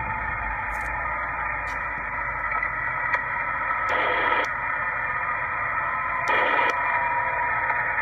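Radio receiver audio of an unidentified siren-like signal on about 28.305 MHz: a steady mix of several tones that keeps sounding. It is broken by two short bursts of hiss, about four and six and a half seconds in.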